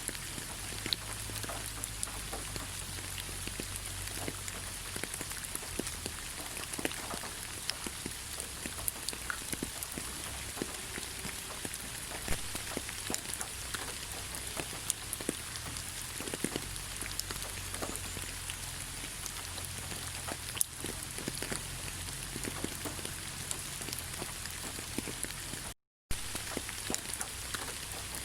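Steady rain: an even hiss with many separate drops ticking close by, over a low hum. Near the end the sound drops out completely for a split second.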